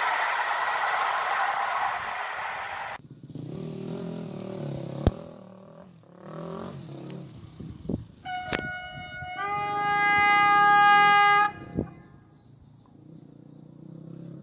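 A passing passenger train's rolling noise that cuts off abruptly about three seconds in, leaving a faint low rumble. Then a train horn sounds loudly for about three and a half seconds, a single tone that becomes a two-tone chord about a second in.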